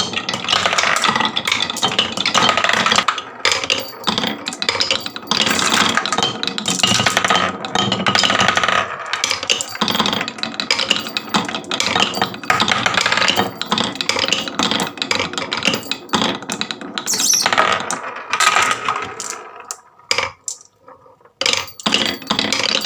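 Many marbles clattering and rolling down a marble run, a dense rapid stream of small hard clicks and rattles that drops away briefly near the end before picking up again.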